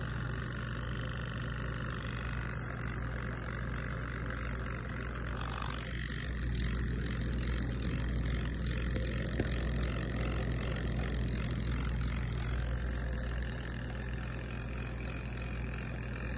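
Electric beard trimmer buzzing steadily as it runs over a beard, a little louder from about six seconds in until near the end.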